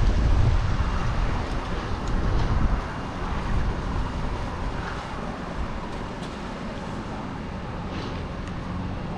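Wind buffeting the microphone, loudest in gusts over the first three seconds, over the steady low hum of an engine running.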